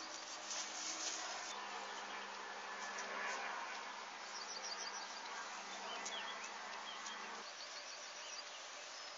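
Insects buzzing with a steady hum that cuts off about seven and a half seconds in, over outdoor hiss. Twice there is a short run of quick, high chirps.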